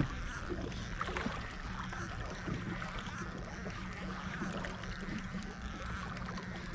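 A boat's motor humming steadily at trolling speed, with water and wind noise around it and faint ticking from a baitcasting reel being cranked in.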